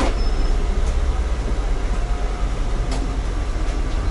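Inside a moving MAZ city bus: a steady deep engine and road rumble, with a few short rattles.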